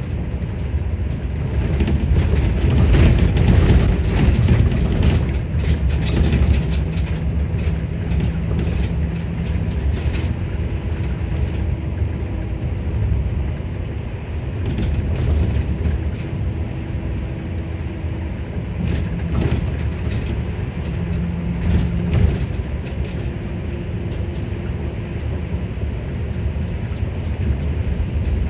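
Electric bus heard from inside while it drives: a steady low road and body rumble, with the electric drive motor's whine showing as short steady tones that come and go. Light rattles and clicks come mostly in the first ten seconds or so.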